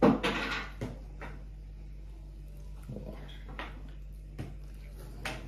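Tabletop eating sounds: scattered light clicks and knocks as flatbread is dipped into a metal frying pan of eggs and tomato, after a short loud burst of noise at the very start. A low steady hum runs underneath.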